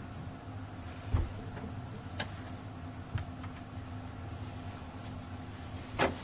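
Cloth being handled by hand on a table: fabric rustling with a few light knocks, the strongest near the end, over a steady low hum.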